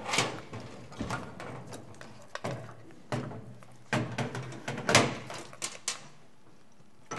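Screwdriver clicking and scraping against a screw in a metal avionics part, with irregular knocks and clatters of small metal parts handled on a steel workbench, the loudest about five seconds in.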